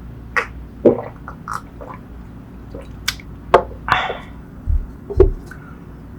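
Close-miked mouth sounds of drinking and eating: gulps of a drink and scattered lip smacks and clicks. Two low thumps come about five seconds in.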